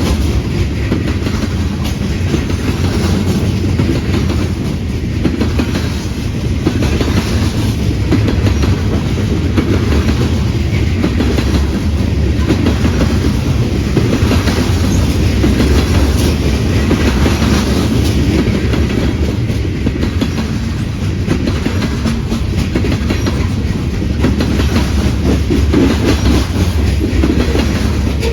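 A train rolling past: a steady rumble of railroad cars with a regular clickety-clack of wheels over rail joints.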